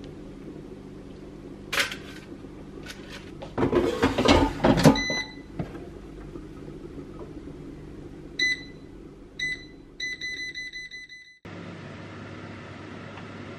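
Air fryer basket clattering as it is pushed into the air fryer, then the air fryer's control panel beeping as it is set: single beeps a few seconds apart, then a quick run of beeps for about a second as the buttons are pressed to set 15 minutes at 180 °C. It cuts off sharply to a steady low hiss.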